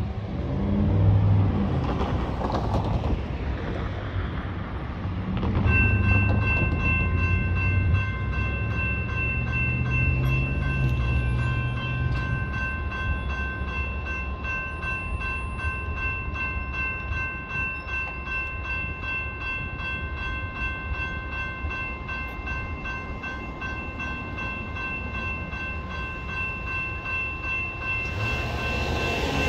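A car passes, then about six seconds in the railroad grade-crossing warning bells start and keep ringing steadily as the crossing activates for an approaching train. A train's rumble rises near the end.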